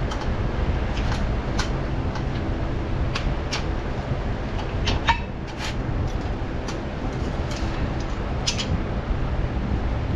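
Scattered sharp clicks and clinks of hand tools on brake parts, with one short squeak about five seconds in, over a steady low rumble.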